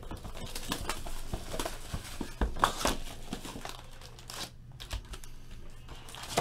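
Clear plastic shrink wrap crinkling and tearing as it is ripped off a cardboard trading-card box, with many small crackles and knocks. The loudest part comes a little before the middle.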